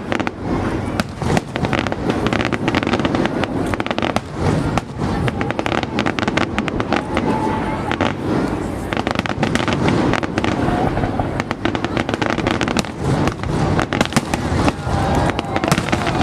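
Fireworks going off: a dense, unbroken crackle of many sharp pops and bangs in quick succession.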